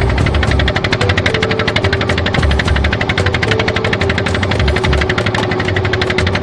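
Small fishing boat's engine running under way, a loud, steady, rapid even knocking.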